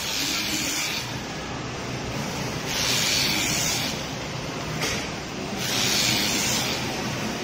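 Cordless electric fabric scissors cutting through thick ribbed fabric in about four short noisy bursts of up to a second each, over a steady background hiss.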